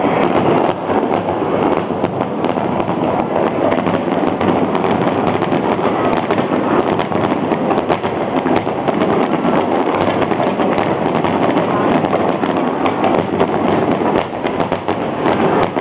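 Fireworks display: a dense, continuous crackle of many small sharp pops from bursting shells.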